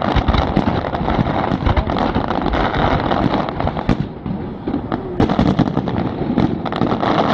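Aerial fireworks shells bursting in rapid succession, their bangs and pops running together, with a short lull about four seconds in before another run of bangs.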